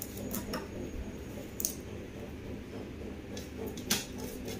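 Kitchen knife clicking and scraping against a tray as the stalks are cut off hibiscus leaves. There are a few light clicks, the sharpest about a second and a half in and near the end.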